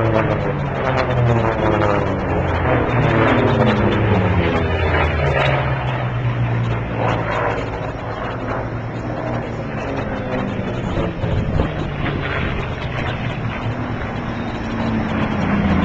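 Racing aircraft flying low past, a loud engine drone whose pitch falls as it goes by. Another aircraft approaches near the end, its pitch rising.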